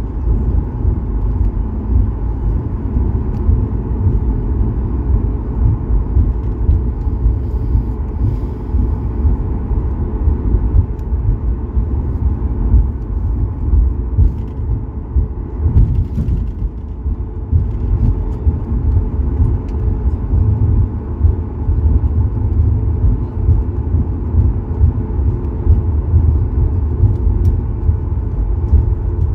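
Cabin noise of a Boeing 737 taxiing: a steady low rumble from the jet engines at taxi power and the wheels rolling over the taxiway, heard from inside the cabin by the window, with a faint steady hum over it.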